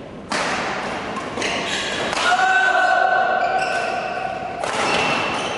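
Badminton rally in a large sports hall: racket strikes on the shuttlecock and thuds of footwork on the court, with voices in the hall. A steady held tone sounds for about two seconds in the middle.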